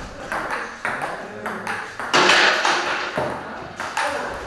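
Table tennis rally: the ball clicking off the paddles and the table, a hit about every half second. A louder burst of noise comes about two seconds in.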